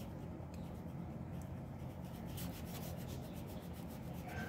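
Rubber eraser rubbing on drawing paper in short, faint strokes, rubbing out pencil construction lines.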